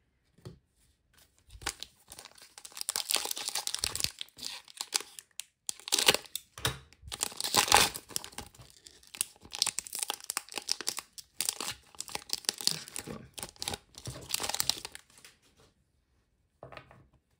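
Footy Stars foil trading-card pack wrapper being crinkled and torn open by hand: a long run of irregular crackling and tearing, with the loudest rips about six and eight seconds in.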